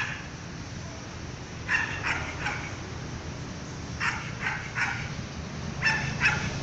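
A dog barking in three short bursts of two or three sharp barks each, a couple of seconds apart.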